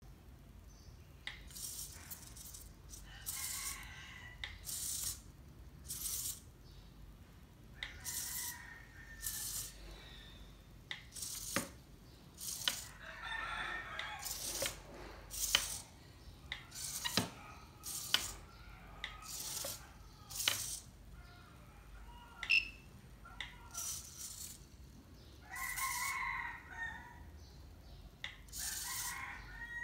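Small hobby servos on a 3D-printed quadruped robot dog buzzing in short bursts as its legs shift, roughly one burst a second at uneven intervals. Now and then a longer whine lasts about a second.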